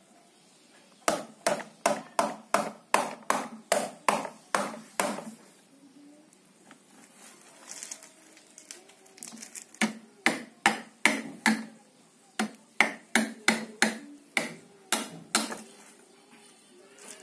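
A hand-held stone knocked repeatedly against a hard surface, sharp knocks about three a second in two runs of a dozen or so, with a pause of a few seconds between them.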